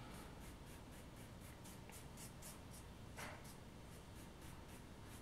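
Faint, rapid brushing: a 1-inch paintbrush swept back and forth as a broom, about four strokes a second, flicking loose scenery turf off the model rails and roadway.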